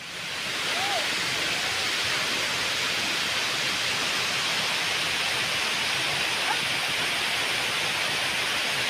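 Steady rush of running water that fades in at the start and then holds level, with a few faint short chirps over it.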